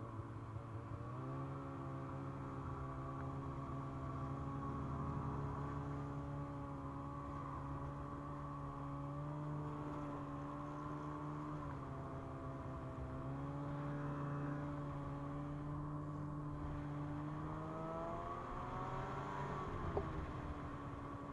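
Ski-Doo MXZ 600 Carb Sport snowmobile's carbureted two-stroke twin running at trail speed. Its pitch steps up about a second in, dips briefly around the middle, then climbs as the throttle is opened near the end and falls back.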